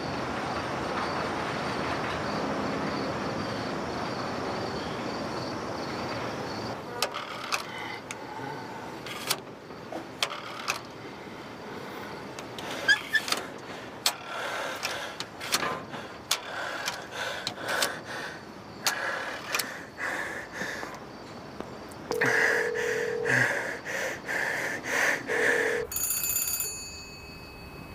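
An old rotary desk telephone ringing in repeated short bursts for about four seconds near the end. Before it come a steady rushing noise and then a run of irregular clicks and knocks.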